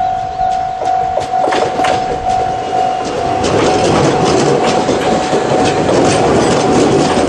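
Japanese level-crossing warning alarm with the 'Tokai' electronic tone, sounding in pulses about twice a second, while a Joshin Electric Railway train runs over the crossing. Its wheels clatter over the rail joints, the rumble growing loud about three and a half seconds in.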